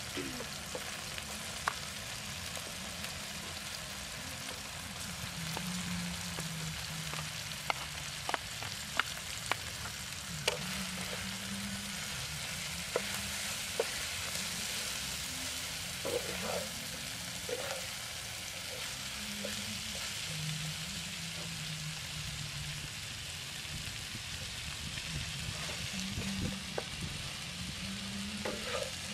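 Shredded cabbage and meat sizzling in a frying pan on a portable gas stove, stir-fried with a spatula that scrapes and knocks against the pan now and then.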